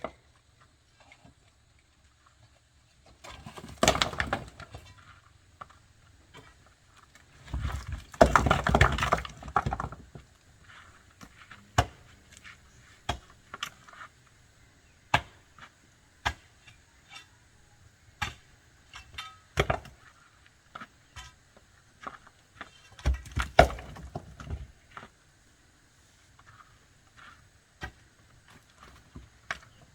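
Retaining-wall repair work: scattered sharp knocks and clacks, with three longer rattling, scraping bursts about four seconds in, around eight to ten seconds in, and near twenty-three seconds in.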